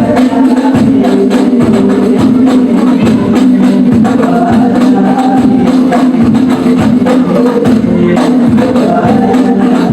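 Hadroh ensemble playing: hand-struck frame drums (rebana) beat a fast, dense rhythm under voices singing a sholawat melody.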